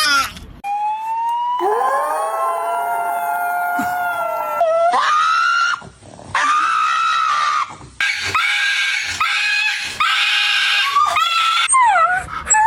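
A dog giving a run of long, drawn-out howling cries that slide up and down in pitch, with short breaks between them, ending in a few quick falling yelps.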